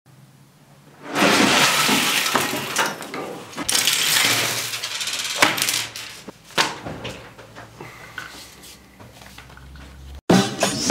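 Hand tools being set down on a table, with clinks of metal and a few sharp knocks, between long bursts of rustling handling noise.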